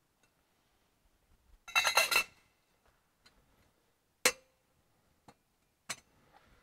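Metal clinking of altar vessels and a tabernacle at the altar: a rattle of clinks about two seconds in, then a sharp metallic knock with a brief ring and, a second and a half later, a smaller click, as the tabernacle door is shut and locked.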